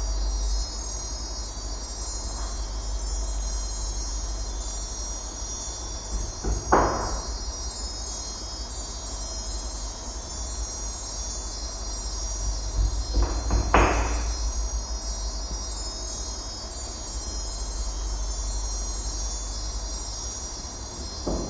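Fairy dust sound effect: a continuous high, glittering chime-like shimmer over a steady low rumble, with a brief swell rising through it three times, roughly every seven seconds.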